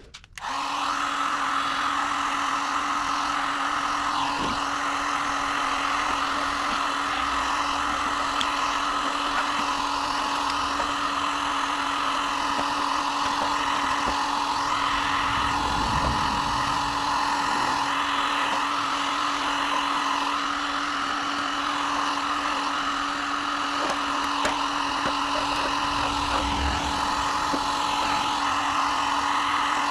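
Handheld electric power tool starting up and running steadily, stripping paint off a steel car wing, with a constant motor hum under a dense grinding noise.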